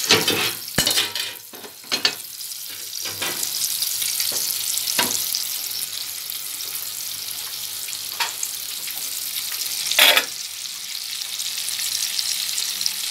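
Flour-coated chicken pieces frying in hot oil in a pot, a steady high sizzle. A few short knocks and clatters break in, the loudest about ten seconds in.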